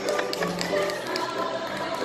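Live stage music: an upright piano playing for a cast singing along, with a few light taps mixed in.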